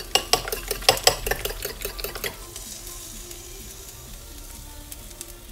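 Fork beating eggs in a ceramic bowl: quick clinks of the tines against the bowl, about five a second, stopping after about two seconds. Under it, diced vegetables sizzle faintly in a frying pan.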